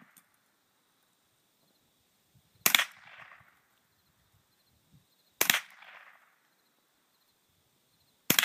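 Ruger 10/22 .22 rifle firing three single shots, spaced a little under three seconds apart, each sharp crack followed by a short echo.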